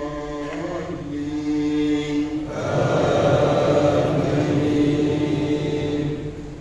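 Imam's melodic Qur'an recitation in Arabic during congregational prayer: a man's voice chanting with long held notes. About two and a half seconds in it grows louder and fuller, then eases off near the end.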